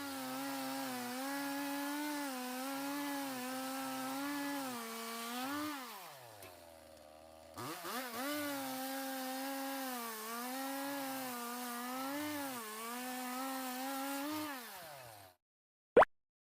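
Chainsaw running while cutting firewood, its pitch sagging and picking up again through the cut, dropping almost to idle about six seconds in before revving back up, then stopping. Two sharp knocks follow near the end.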